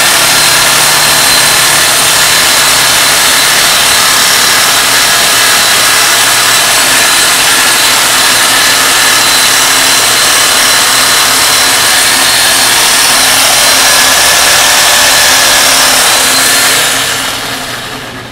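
Electric power saw running continuously as it cuts lengthwise down a pig carcass beside the spine, then winding down and stopping near the end.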